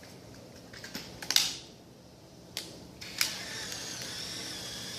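35mm film camera being loaded: a few sharp clicks and snaps, then from about three seconds in the steady whir of the camera's motor winding the newly loaded film on.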